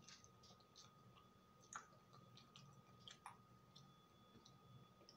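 Quiet chewing of a frosted cupcake: soft, scattered wet mouth clicks, two of them a little louder about two and three seconds in. A faint steady high tone runs underneath.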